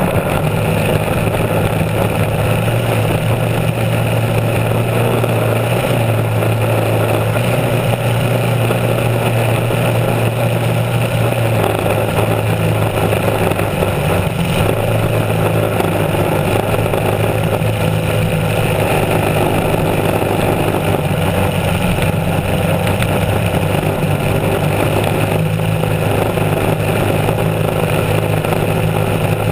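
Racing hydroplane's engine running hard and steady at speed, its pitch shifting slightly about twelve seconds in, under a rush of spray and wind over the boat.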